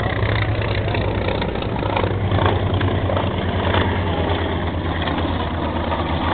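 Piston engine of a WWII-era propeller warplane flying over, running steadily.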